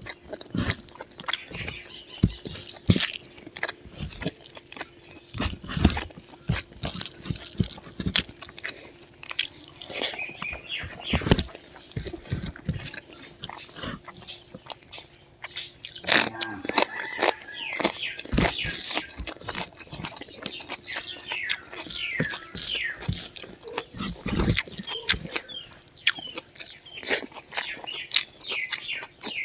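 A person chewing and biting pork and rice, with irregular wet mouth clicks and smacks throughout.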